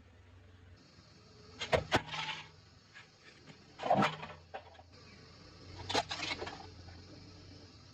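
Close-miked eating sounds: three bursts of crisp crunching, about two seconds apart, each a cluster of sharp cracks with a short crackle after.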